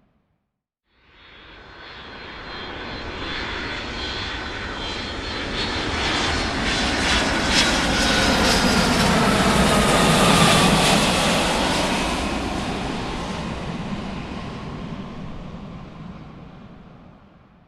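Large aircraft flying past: engine noise swells up over several seconds, peaks about ten seconds in, then fades away. A high whine slides down in pitch as it goes by.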